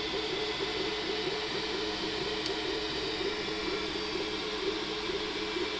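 Hypercube Evolution CoreXY 3D printer running a print: its stepper motors hum in a tone that wavers up and down as the print head moves, over a steady hiss.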